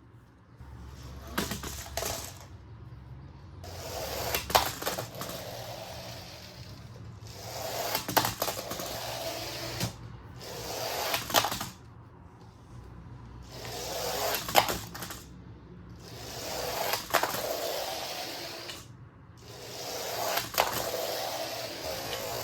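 Motorised Lego Technic bulldozer running in repeated drives a few seconds long with short pauses between, a whirring mixed with clicks and clattering of plastic parts.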